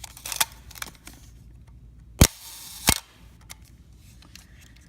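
Praktica MTL 5 35mm SLR's shutter fired at a slow speed: a loud mechanical clack as the mirror and shutter release, a brief buzz, then a second clack about two-thirds of a second later as the shutter closes and the mirror returns. Light handling clicks come first.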